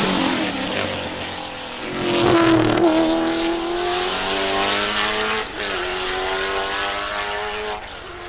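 Holden VE Commodore V8 Supercar's naturally aspirated 5.0-litre V8 passing close by with a drop in pitch. It then accelerates hard away, the engine note rising through the gears with a quick upshift about five and a half seconds in and another near the end, fading as the car goes.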